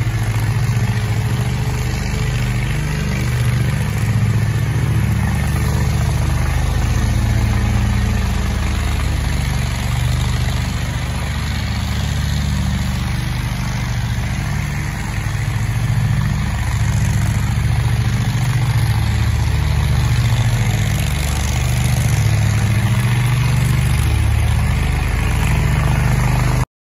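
Toro Grand Stand stand-on mower's engine running steadily while mowing. The sound cuts off suddenly near the end.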